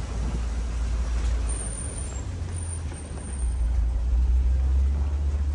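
Open-sided safari truck driving along, a steady low engine and road rumble that grows louder a little past halfway.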